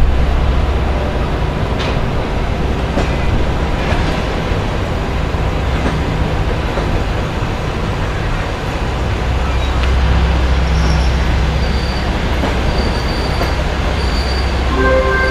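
Passenger train coaches rolling slowly into a station platform: a steady low rumble of wheels on rail with a few faint knocks over the rail joints. A faint high squeal, typical of brakes or wheel flanges as the train slows, comes in about ten seconds in.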